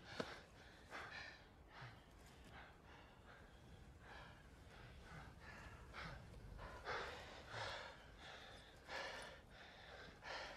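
Two men breathing hard, faint, in a string of short gasping breaths and sighs, a few of them louder in the second half.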